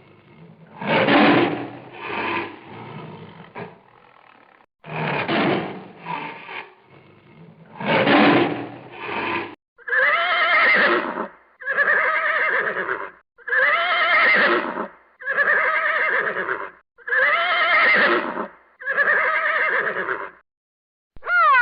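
Animal sound effects: three rough roars in the first half, then six horse neighs, each about a second long and rising and falling in pitch, repeated at an even pace.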